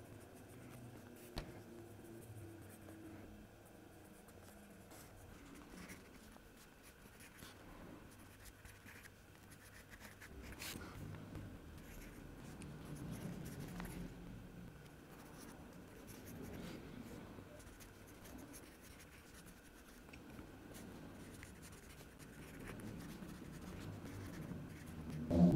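Wooden pencil scratching faintly on the paper of a pocket notebook, writing out lines of a recipe in short, irregular strokes, with an occasional sharper tick.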